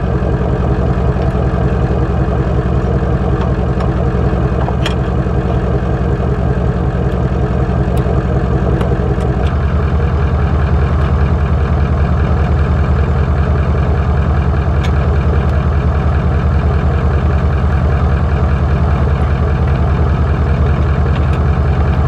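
Toyota LandCruiser 70 Series engine idling steadily, with a few faint clicks.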